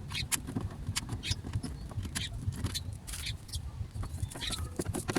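Irregular clicks, knocks and short scrapes of hands fitting a replacement door lock actuator into a car door's lock mechanism.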